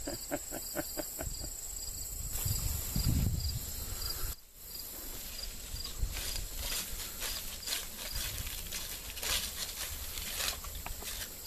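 Insects chirping steadily, a high pulse repeating a few times a second, with a brief low rumble about three seconds in. After a cut, footsteps crunch and swish through grass and dry fallen leaves.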